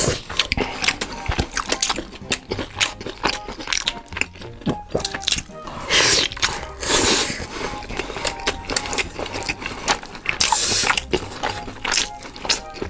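Close-miked eating: wet chewing, lip-smacking and crunchy bites on braised meat and fried food, a run of clicks and smacks with louder wet bites about halfway through and again near the end. Faint background music underneath.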